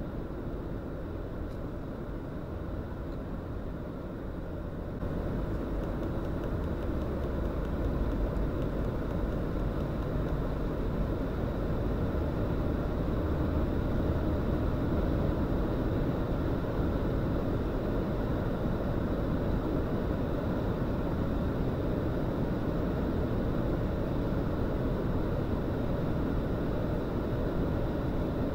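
Cabin noise of a VW Polo's 1.0 TSI three-cylinder turbo petrol engine in fifth gear at motorway speed, with tyre and wind noise. It grows louder about five seconds in as the car accelerates under load from 120 to 140 km/h, and stays at that level.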